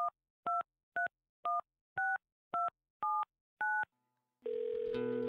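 A phone keypad dialing a number: eight short touch-tone (DTMF) beeps, about two a second, each a two-note chord. About four and a half seconds in, music starts.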